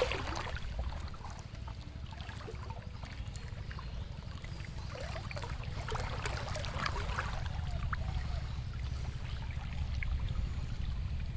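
Wind rumbling on the microphone over water, with light splashing and trickling and scattered small knocks.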